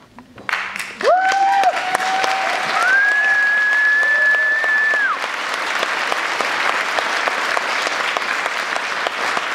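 A theatre audience breaks into loud, sustained applause about half a second in, with high cheering whoops rising above the clapping in the first few seconds.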